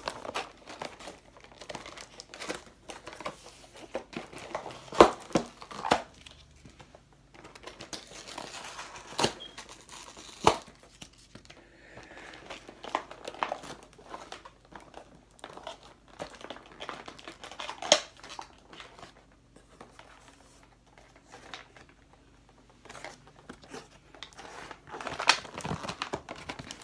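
Toy packaging handled and opened by hand: cardboard box and plastic crinkling and rustling, with scattered sharp clicks and a few knocks.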